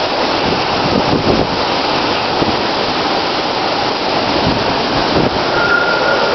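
Hurricane-force wind and heavy rain in a hurricane's eye wall: a loud, steady rush with wind buffeting the microphone, and a faint high whistle near the end.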